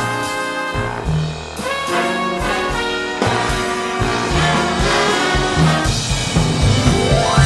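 Big-band jazz with trumpets and trombones playing over a walking bass and drums; a brass line rises in a long glide near the end.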